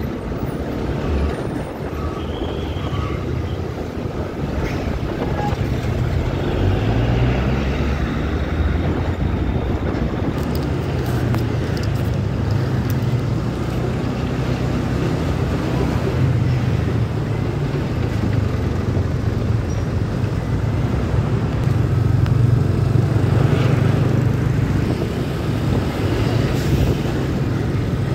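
Motorcycle engine running while riding through heavy traffic, its low note rising and falling with the throttle, mixed with road and traffic noise from trucks being passed close by.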